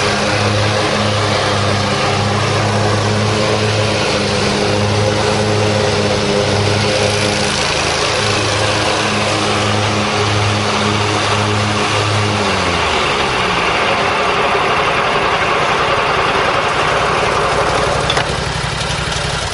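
The 23 horsepower Kawasaki engine of a John Deere 667A Stander commercial zero-turn mower runs steadily and loudly. About two-thirds of the way through, its pitch drops as the engine slows, and the machine keeps running.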